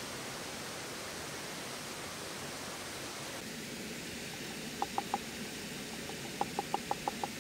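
Steady rush of a waterfall, with light, ringing wooden knocks in the second half: three close together, then a quick run of about six, as a hollow wooden mortar is tapped to shake ground spice out onto a wooden board.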